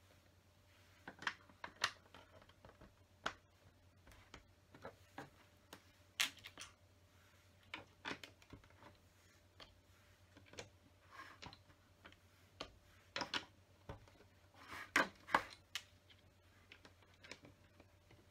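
Plastic LEGO pieces clicking and tapping as they are handled, set down on the table and pressed together, in scattered irregular clicks. The loudest is a close pair of clicks near the end.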